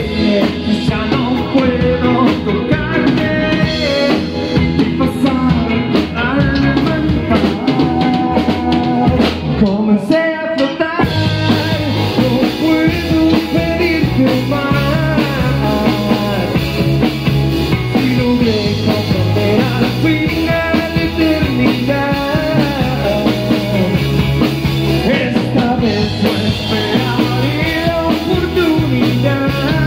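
Live rock band playing: electric guitars and a drum kit with sung vocals. About ten seconds in the low end and drums drop out for a moment, then the full band comes back in.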